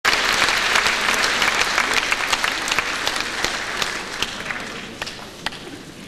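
Audience applause, dense at first, then fading and thinning to a few scattered claps near the end.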